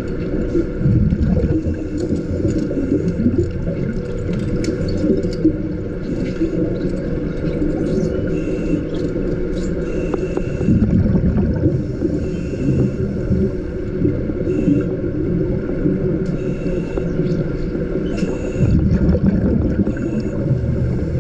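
Underwater pool sound heard through the water: scuba exhaust bubbles from a diver's regulator rumbling in surges about every eight to nine seconds, over a steady low underwater hum, with scattered small clicks of gear.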